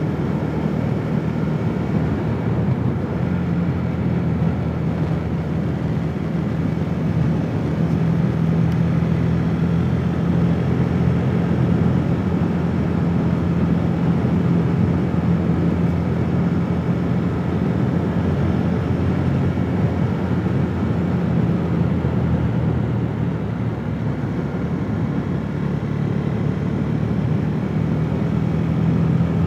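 KTM 390 Duke single-cylinder engine running steadily while cruising on the road, with wind and road noise over the engine.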